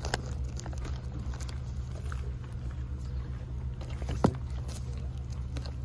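Plastic comic book bags crinkling and clicking as a hand flips through a box of bagged comics, with one sharper click about four seconds in. A steady low rumble runs underneath.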